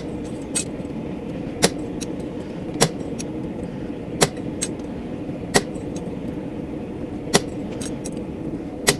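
Hammer blows on a chisel cutting barb marks into hot steel on an anvil: about seven sharp metallic strikes, one every second or so, with lighter taps between, over a steady hum.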